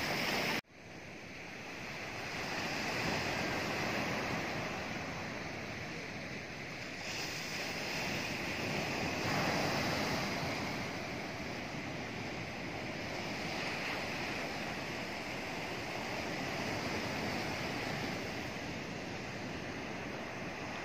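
Ocean surf breaking and washing up a pebble beach, a steady rush that swells and eases in slow surges. The sound cuts out for an instant about half a second in.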